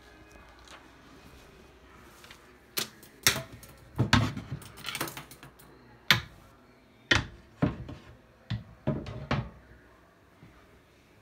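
A run of sharp hard knocks and clatters, about a dozen over several seconds, as the fittings at a travel trailer's kitchen sink are handled: a sink cover is lifted off the stainless sink.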